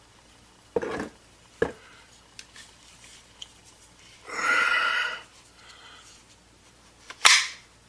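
Short knocks and clicks of a Kel-Tec Sub 2000 carbine being handled, a few separate ones, with a longer half-second noise about four seconds in.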